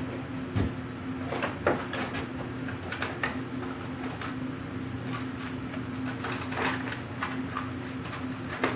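Light knocks and clicks at irregular intervals from work at a bench: wooden parts and tools being handled and set down. A steady low hum runs underneath.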